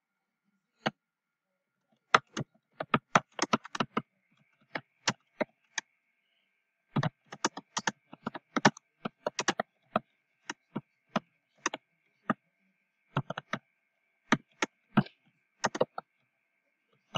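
Computer keyboard typing: sharp key clicks in irregular runs, with short pauses between them.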